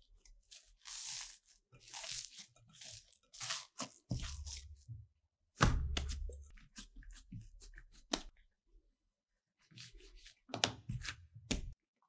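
Hands working a soft, sticky yeast dough: irregular tearing and squishing sounds as the dough is pulled and pressed, with a few heavier thumps at about four, five and a half and eleven seconds.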